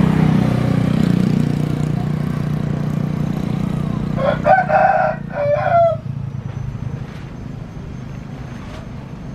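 Jet airliner engines running at takeoff power on the runway, a low rumble that slowly fades. A rooster crows loudly once, starting about four seconds in.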